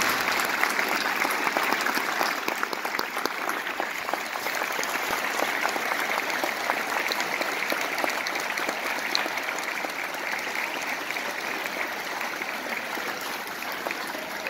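A large audience applauding, a dense patter of many hands clapping that slowly eases off over the seconds.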